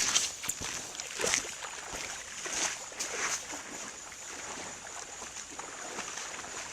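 Steady rushing water of a waterfall and stream, with scattered clicks and knocks in the first few seconds.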